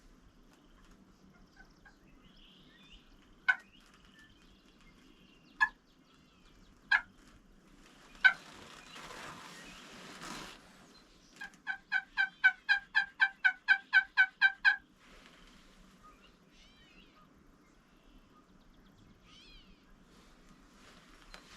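Turkey calling: four sharp single clucks a second or two apart, then a run of about a dozen yelps at about four a second lasting some three seconds. Faint small bird chirps follow near the end.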